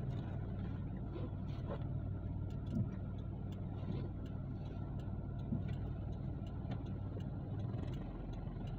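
Steady low hum of a car's engine and cabin noise, heard from inside the car as it moves slowly.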